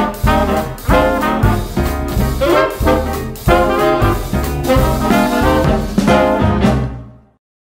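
Swing-style background music led by brass, fading out and stopping just before the end.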